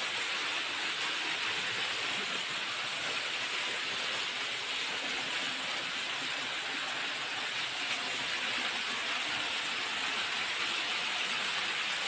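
Steady, even rush of a waterfall.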